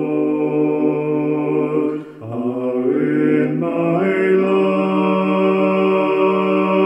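A man singing a slow worship song in long held notes over his own instrumental accompaniment, with a brief break about two seconds in and a new note near four seconds.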